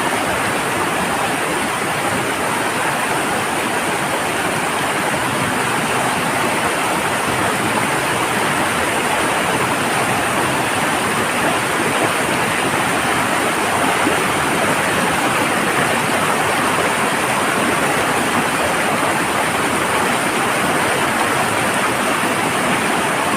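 Waterfall rushing steadily, a dense even roar of falling water, running hard and full after recent rain.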